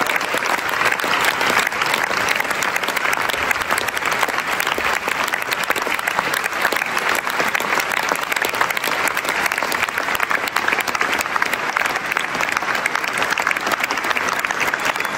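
Theatre audience applauding steadily, a dense continuous clapping of many hands.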